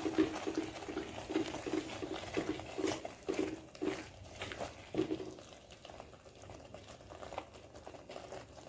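Thick coconut-milk-and-cream mixture bubbling in a non-stick kadhai as a silicone spatula stirs and scrapes it: soft, irregular plops and strokes that grow fainter in the second half. The mixture is still wet with milk and cream and is being cooked down to thicken.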